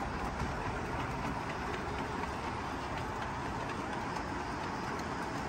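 O gauge two-rail model train running along the layout's track: a steady rolling rumble with occasional light clicks of wheels over the rails.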